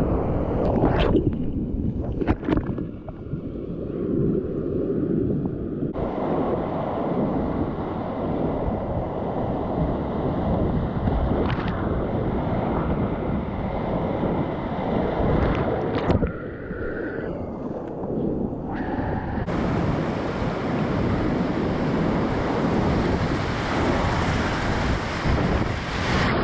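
Whitewater rushing steadily around a kayak, with wind buffeting the microphone and a few sharp knocks, a handful of times.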